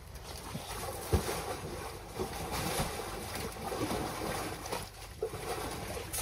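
Wind buffeting the microphone over wet mud squelching and sloshing as elephants wallow and roll in a mud pool, with one louder knock about a second in.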